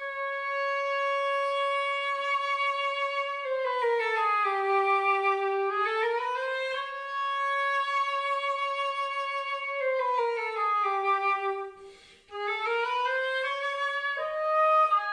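Solo flute playing a slow melody. Its long held notes slide down and back up twice, it breaks off briefly about two-thirds through, and quicker notes come near the end. It is heard through the reverberation of a computer-simulated theatre hall, an auralization at one listener seat.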